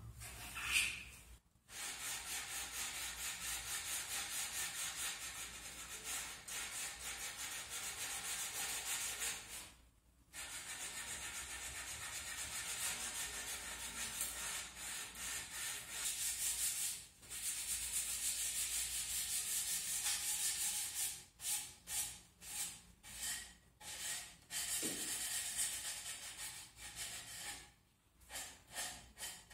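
Hand sanding of long wooden clock legs with abrasive paper: fast back-and-forth rubbing strokes, continuous with a few short pauses, breaking into shorter separate strokes near the end. A brief sharp scrape about a second in is the loudest sound.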